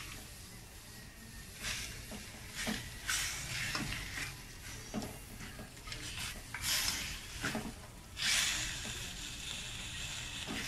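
Pork cubes and onions sizzling in a stainless steel wok while a metal spatula stirs and scrapes them in irregular strokes, with a longer stretch of sizzling and scraping about eight seconds in. The pork is being sautéed until golden brown.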